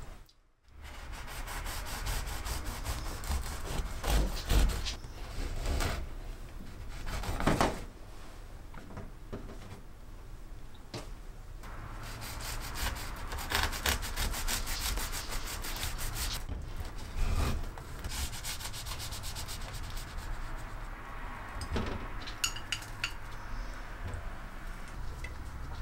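Serrated bread knife sawing through a loaf of bread on a wooden cutting board in quick back-and-forth strokes, in two long spells, the second starting about halfway through, with a knock after the first spell.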